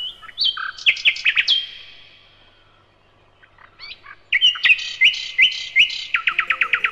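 A songbird singing: a burst of chirps and whistles, a pause of about two seconds, then a second phrase that ends in a fast trill of falling notes.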